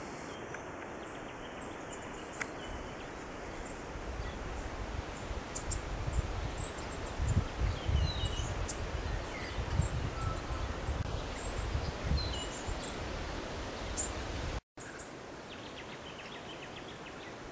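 Bushland ambience: scattered short, high bird chirps over a steady hiss, with low rumbling on the microphone swelling through the middle. The sound drops out for a split second near the end.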